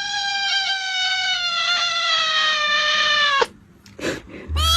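A cat yowling: one long drawn-out call that slowly falls in pitch and breaks off about three and a half seconds in, then a second yowl starting near the end.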